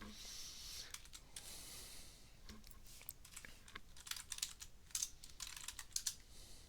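Typing on a computer keyboard: irregular runs of key clicks, coming thicker in the second half. A soft rushing noise comes first, in the first couple of seconds.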